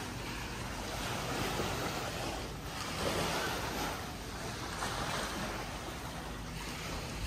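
Sea water washing and breaking in waves, swelling and ebbing about every second and a half, over a low steady rumble.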